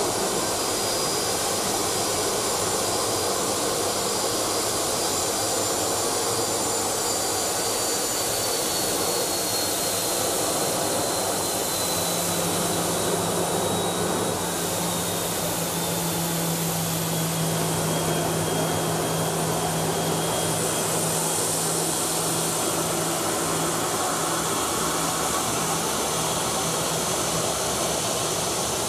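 Turbofan engines of a Boeing 737 business jet running as it taxis on the apron: a steady jet rush with a thin high whine that slowly falls in pitch over the first half. A low steady hum joins about twelve seconds in.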